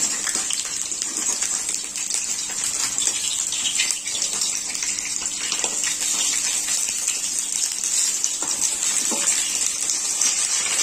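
Batter-coated pumpkin flower pakoras shallow-frying in hot oil in a kadai: a steady, even sizzle.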